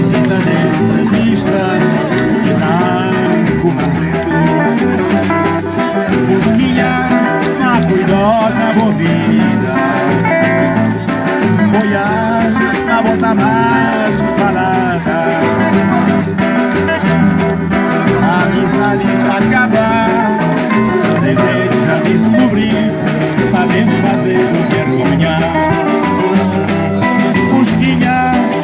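Band music with guitar over a steady beat.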